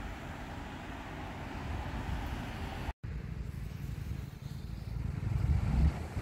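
Road traffic, cars passing on a nearby road, as a steady hiss and rumble; after a brief cut, a low, uneven rumble that grows louder near the end.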